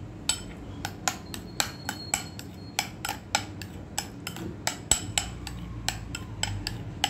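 A metal utensil clinking against cookware in a quick uneven run, about two to three light clinks a second.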